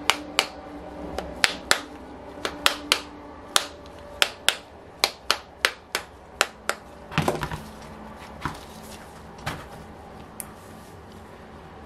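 A run of sharp metallic clicks, about two or three a second, from a hand tool working on the screws of a model aircraft engine and the aluminium engine being handled; near the middle a short clatter, then a few scattered knocks.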